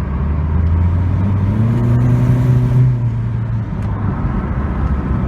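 A vehicle engine running under a steady rush of noise, revving up once about a second in and dropping back near the three-second mark.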